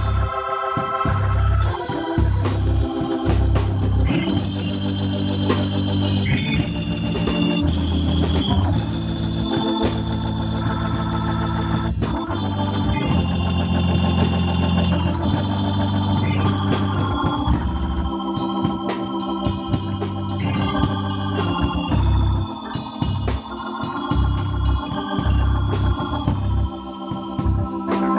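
Hammond organ playing a gospel song in sustained, shifting chords, with a drum kit keeping time behind it.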